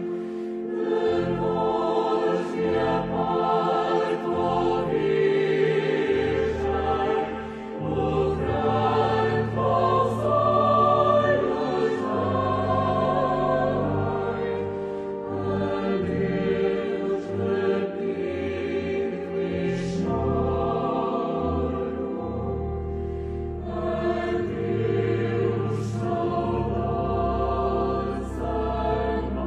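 A choir singing a slow religious hymn, with long held notes in full chords.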